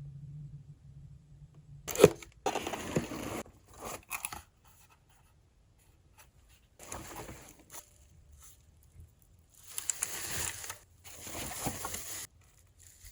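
Packaging of a keyboard being opened and handled: crinkling, tearing and scraping in irregular bursts, with a sharp knock about two seconds in.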